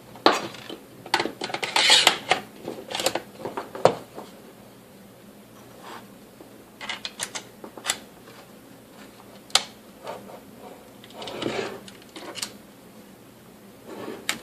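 Scattered clicks, taps and short rubbing scrapes from a plastic electric stapler's housing and parts being handled during reassembly, busiest in the first few seconds and sparser after.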